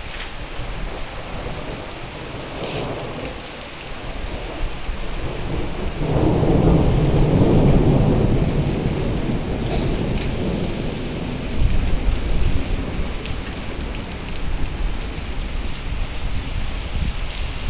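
Heavy rain pouring steadily, with a long roll of thunder that rumbles in about six seconds in, is loudest for about three seconds and then slowly fades. A few sharp, louder knocks come about twelve seconds in.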